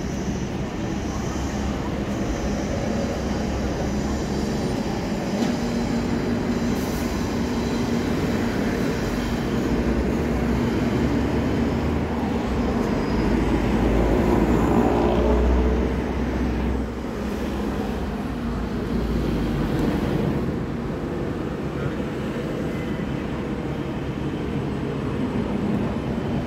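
Busy city road traffic, with a red London double-decker bus passing close about halfway through: its low engine rumble swells and then fades away.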